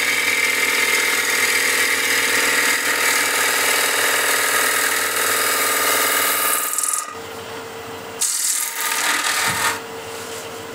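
A bowl gouge cutting the outside of a wooden bowl spinning on a lathe, with a continuous hissing rush of shavings over the hum of the lathe. The cut stops about seven seconds in, with a short second pass a second later, and then only the lathe's steady hum is left.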